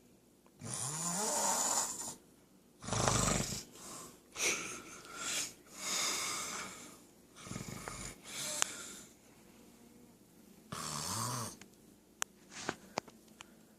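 A man snoring in his sleep: about half a dozen irregular snoring breaths, each roughly a second long with uneven gaps, some rising in pitch. A few short clicks come near the end.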